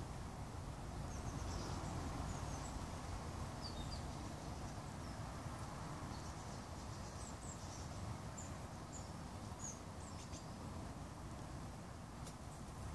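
Garden ambience: a steady low background hum with faint, short, high bird chirps scattered throughout.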